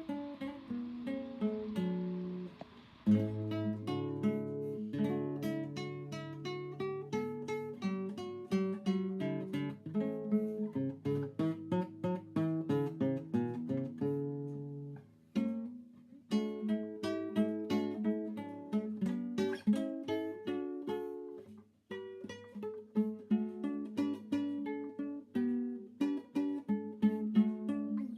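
Music: a plucked acoustic guitar playing a melody over low bass notes, with two brief pauses in the middle. A soft hiss runs under the first few seconds.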